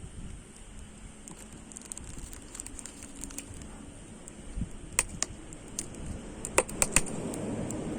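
Firewood burning, crackling with scattered small ticks and a few sharp pops about five seconds in, then a quick run of loud pops near the end.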